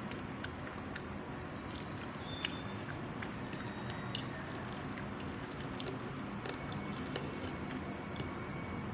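A person chewing and eating food close to the microphone, with scattered small wet mouth clicks over a steady background hiss.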